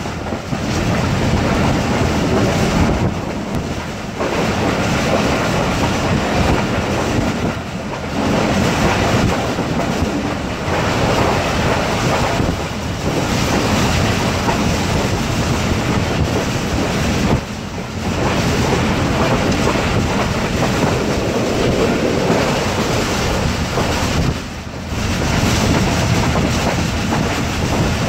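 Passenger train running along the track: a steady, loud rumble of the coaches' wheels on the rails, with wind noise on the microphone and about five brief dips in loudness.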